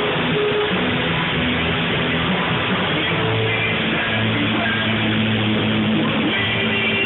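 Rock band playing loudly with electric guitar to the fore and no singing, sustained low notes under a dense, steady wall of sound.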